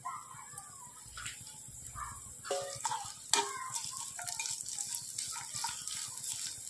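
Sliced onions and green chillies sizzling in hot oil in a nonstick kadai, with a spatula stirring and scraping against the pan from about two and a half seconds in.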